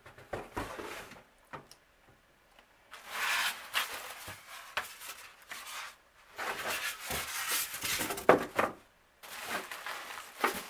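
Styrofoam packing blocks being pulled off a plastic-wrapped electric skillet, with the plastic bag rustling and a few knocks from the handling. The rustling comes in spells with short pauses between them.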